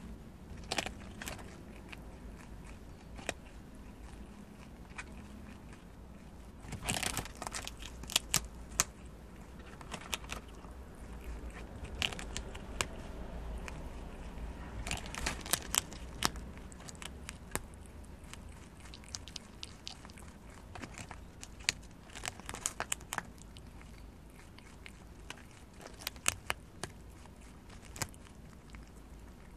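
A prairie dog biting and chewing into the green husk of a whole ear of fresh corn: irregular sharp crunching clicks that come in clusters, with quieter pauses between.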